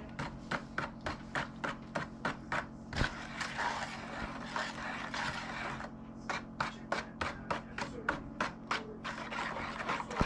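Wire whisk beating pumpkin pie filling in a large mixing bowl: quick rhythmic strokes, about four a second, clicking against the bowl. In the middle the strokes blur into a steadier scraping swish before the clicking strokes resume.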